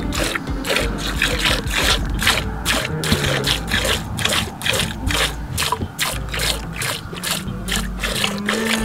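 Camel being milked by hand: quick squirts of milk hitting the milk in an enamel pot, about three a second, in a steady rhythm.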